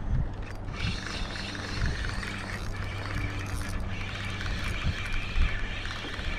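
Motorboat engines humming steadily, with water and wind noise.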